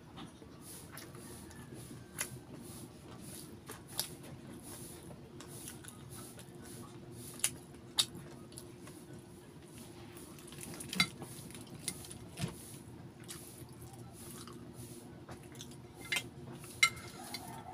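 Close-up eating sounds: chewing with wet mouth clicks and lip smacks, scattered sharp clicks over a steady low hum. Near the end, fingers tear at crispy fried chicken.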